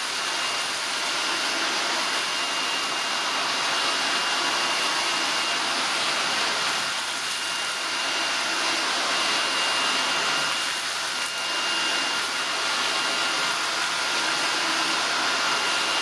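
Shark IZ320EUT cordless stick vacuum running with its crevice tool, picking up sand and grit from a hard floor: a steady rush of air with a high, even motor whine.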